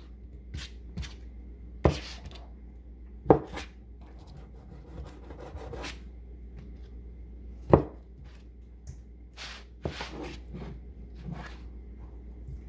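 Knife cutting raw chicken into small pieces on a cutting board: irregular knocks of the blade against the board, three of them much louder than the rest.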